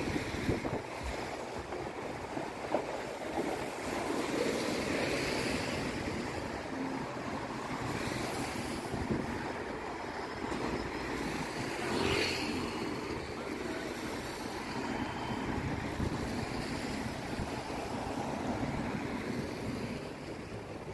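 Road traffic going by on a wet street: cars and buses passing, their tyres hissing on the wet asphalt, swelling as each vehicle goes past, with some wind on the microphone.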